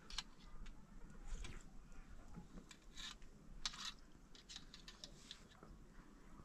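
Faint, irregular rustles and light clicks: a dozen or so short scrapes and ticks scattered through the few seconds, the loudest about three and a half seconds in.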